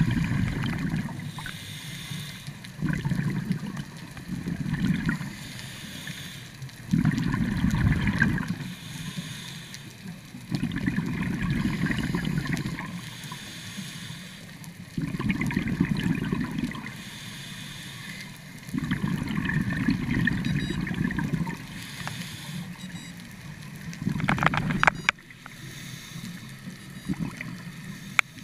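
A scuba diver breathing through a regulator underwater: loud bubbly exhalations about every four seconds, each lasting a second or two, alternating with fainter hissing inhalations. A few sharp clicks come near the end.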